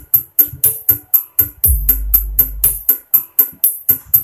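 Electronic music with a fast, steady drum-machine beat, about five hits a second, played loud through a woofer speaker cabinet driven by a power amplifier in normal non-BTL mode (one amplifier channel to one speaker). Deep bass notes swell in before halfway and drop out again a second or so later.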